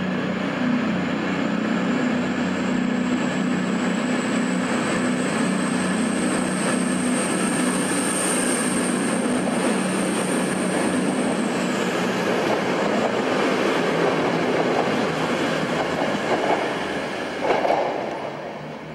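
Virgin Voyager diesel train running through the platform: a steady engine drone with a high whine that slowly rises, then drops away about two-thirds of the way through. The sound falls off near the end as the train draws away.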